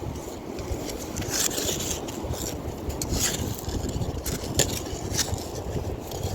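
Wind buffeting the microphone, with several short scraping crunches from a tool digging into beach sand.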